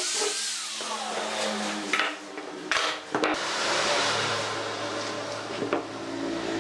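Angle grinder with a sanding disc winding down, its pitch falling over the first second. A few sharp knocks follow, then sandpaper is rubbed by hand over a curved wooden block with a steady scratchy hiss.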